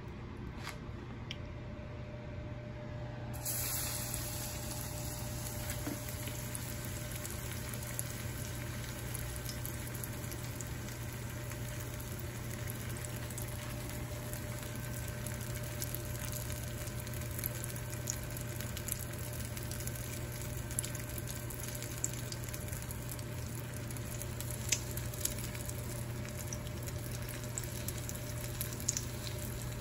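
A Takis-crusted mozzarella stick frying in a shallow pan of hot oil: steady sizzling with scattered small pops, which starts abruptly about three seconds in.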